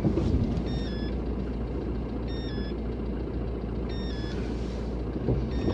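Car engine idling with a steady low rumble, and a short two-note electronic beep that repeats about every second and a half.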